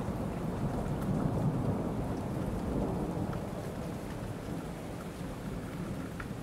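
Steady rain with a low rolling rumble of thunder, slowly fading.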